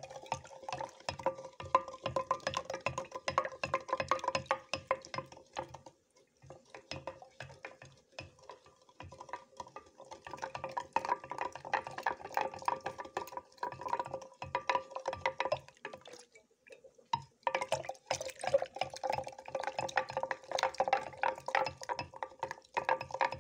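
Long wooden spoon stirring lemon juice in a glass pitcher, rattling quickly against the glass with liquid swishing. The stirring stops briefly a few times.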